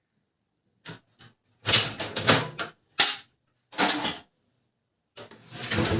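Plastic casing of a Canon LBP 2900 laser printer clicking and clattering as it is pried open: six or so short, sharp bursts about a second apart.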